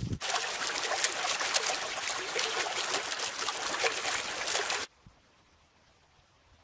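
Shallow rocky stream running and splashing over stones. It starts abruptly and cuts off sharply nearly five seconds in, leaving near silence.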